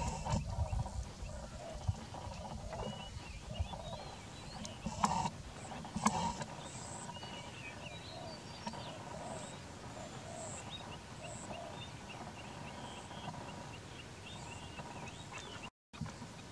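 Birds calling in quick series of short, high chirps, with two sharper, louder sounds about five and six seconds in.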